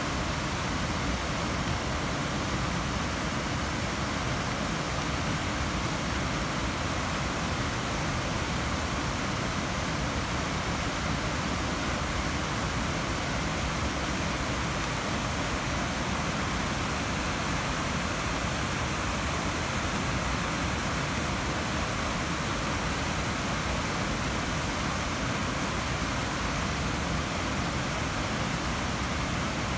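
Steady rush of shallow river water flowing over a rocky bed, an even hiss with no breaks or single splashes standing out.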